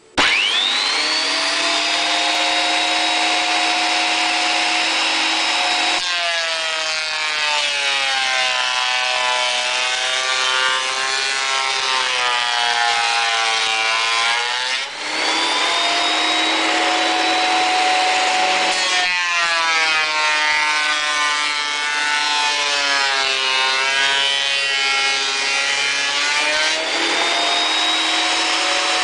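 Bernardo combination jointer-thicknesser switched on, its motor and cutterhead spinning up within a second to a steady high whine. Two boards are then planed through the thicknesser, each cut lasting about eight seconds, with the pitch sagging and wavering under load before settling back to the free-running whine.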